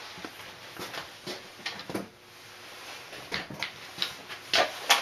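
Handling noise: scattered light knocks and clicks of objects being moved about, with the sharpest knocks a little before the end.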